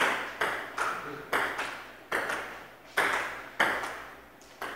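Table tennis rally: the ball clicking sharply off paddles and the table, about two hits a second, each with a short ring after it.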